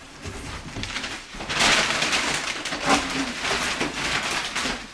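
Tissue paper and a cardboard box rustling and crinkling as a bulky knitted scarf is pulled out of the box. It turns loud and busy about a second and a half in.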